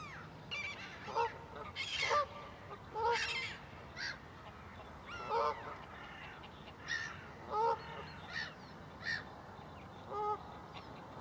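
Geese honking: about a dozen short calls, spaced irregularly roughly a second apart, over faint outdoor background noise.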